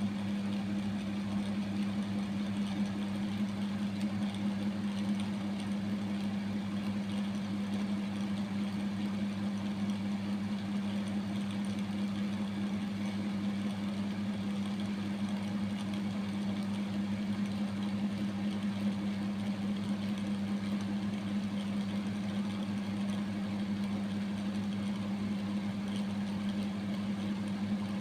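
A steady, low mechanical hum that does not change.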